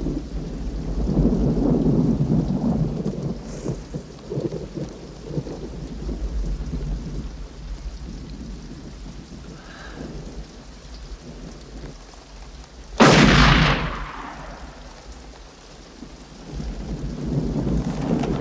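Heavy rain with rumbling thunder. About thirteen seconds in, a single loud gunshot goes off and dies away.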